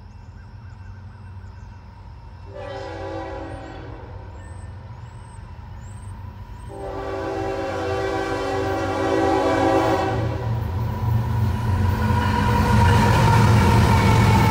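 Union Pacific diesel freight locomotive sounding its air horn: a short blast about two and a half seconds in, then a longer one about seven seconds in. The locomotives' engine rumble then grows steadily louder as the train comes up and passes.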